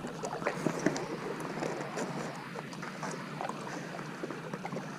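Kayak paddle strokes through lake water, with irregular small splashes and water lapping against the kayak's hull.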